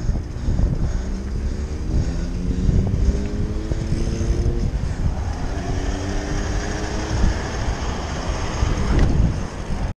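Wind rumbling on the microphone, with a motor vehicle's engine heard rising in pitch, dropping back and rising again as it accelerates.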